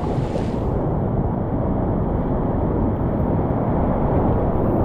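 Whitewater rapids rushing: a steady, heavy, low rushing of fast river water, getting slightly louder toward the end.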